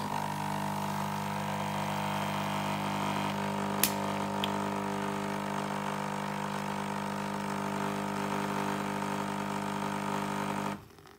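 Nescafé Dolce Gusto capsule machine's pump running steadily as it brews a coffee capsule into the cup, a hum of several even tones that starts suddenly and cuts off shortly before the end. Two short clicks come about four seconds in.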